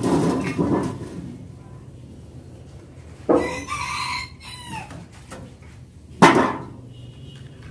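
A rooster crowing once about three seconds in, a long call that bends down in pitch at the end. A loud, sharp knock follows about six seconds in.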